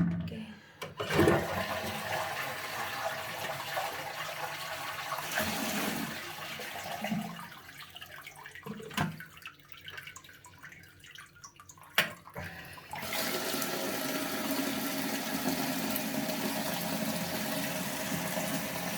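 Toilet flushing: a click, then water rushing for several seconds, then quieter gurgling with a few knocks. From about 13 seconds in comes a steady hiss of the cistern refilling.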